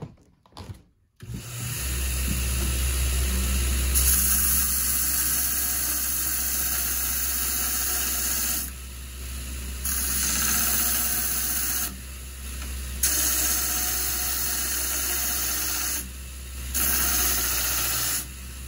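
Belt grinder motor starting up about a second in, then the abrasive belt grinding the steel end of a chainsaw bar with a steady hum and hiss. This is chamfering the joint where a new nose tip meets the bar rails so no edges catch. The grinding eases off briefly three times as the bar is lifted from the belt.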